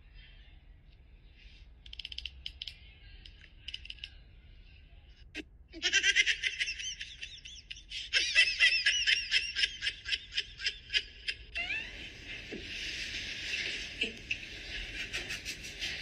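High-pitched laughing in rapid pulses, beginning suddenly about six seconds in and breaking off around the twelve-second mark, followed by a steady high hiss.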